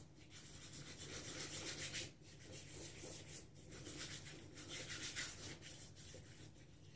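Wet palms and fingers rubbing soapy shaving-soap bloom water into facial stubble as a pre-shave: a soft, quick, repeated rasping of hands over bristles.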